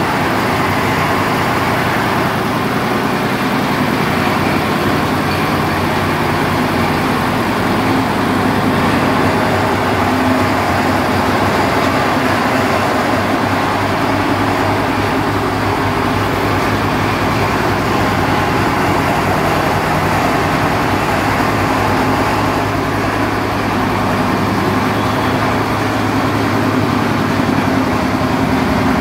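Stationary single-cylinder diesel engine running steadily with a fast even beat, driving a coal crusher and its conveyor belt through a flat drive belt.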